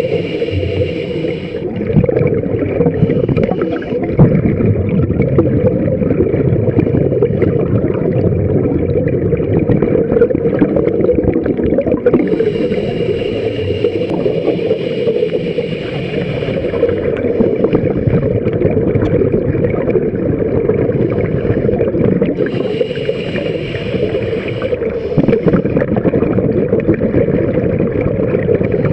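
Underwater sound on a scuba dive: a steady low rumble of water and bubbles, with a scuba regulator's hissing inhale three times, each a couple of seconds long, at the start, about halfway through and about three-quarters through.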